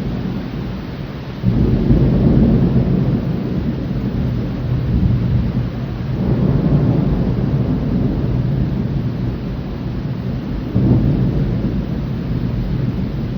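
Thunder rumbling long and low over steady rain. A sudden louder peal breaks in about a second and a half in, and the rumble swells again around the middle and near the end.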